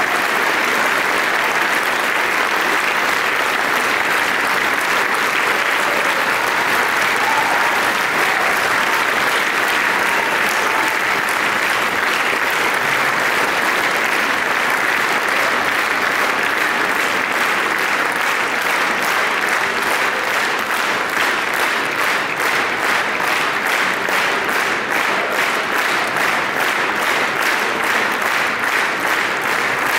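A large concert audience applauding steadily. In the second half the clapping falls into a regular beat, the audience clapping in unison.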